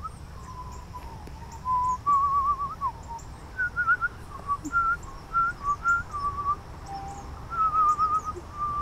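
A woman whistling a warbling tune in short phrases with quick trills, whistled to a song sparrow to coax it into singing back. Faint, short, high bird chirps sound behind the whistling.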